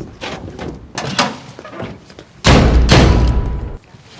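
Van hood being released and raised: a few sharp metal clunks, then a loud, heavy clattering thud about two and a half seconds in that lasts over a second.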